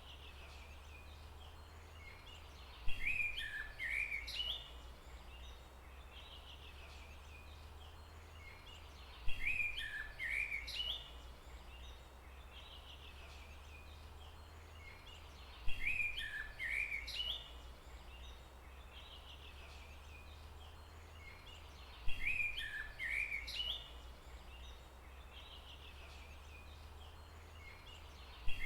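A songbird singing a short phrase of quick chirps, the same phrase coming back four times at even spacing of about six and a half seconds, over a steady low rumble.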